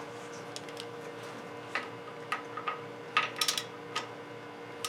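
A few light, irregular metallic clicks and taps, about seven in all, as a hand tool is fitted to the serpentine belt tensioner, over a steady faint hum.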